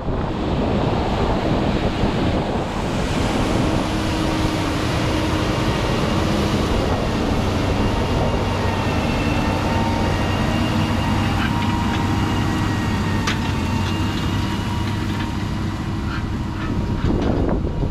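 Challenger MT775E tractor's engine running steadily under load as it pulls an Omni-Til cultivator through heavy soil, with wind on the microphone.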